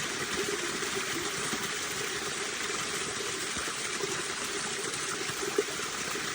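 Water running steadily into a water-catchment tank, an even rushing flow, with one brief knock about five and a half seconds in.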